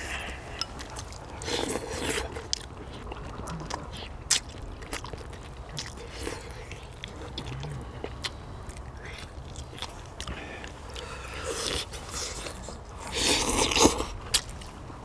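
People eating spicy braised chicken: chewing and biting, with sharp clicks of chopsticks against bowls and the pan throughout. There are two louder noisy bursts, one about a second and a half in and one near the end.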